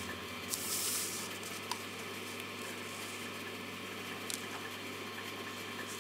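Soft rustles and a few light clicks of paper being handled and slid into place on a letterpress feed board, over a faint steady low hum.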